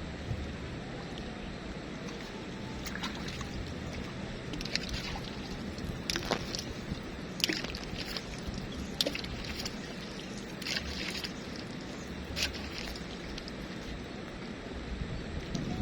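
Steady low rush of river water, with short sharp splashy crackles every second or two.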